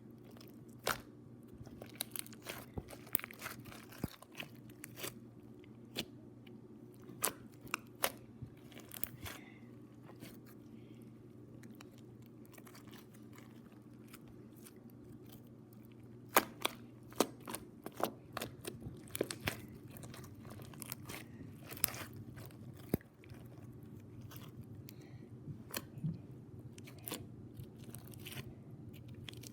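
Slime being squeezed and worked by hand, giving irregular crunchy clicks and pops over a steady low hum. The pops thin out for a few seconds near the middle.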